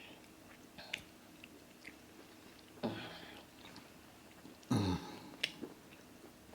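A person eating amala with egusi soup close to the microphone: soft chewing and small mouth clicks, with two short, louder mouth noises about three and five seconds in.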